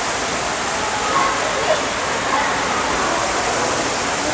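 Steady rushing of falling water, with faint short bird calls over it.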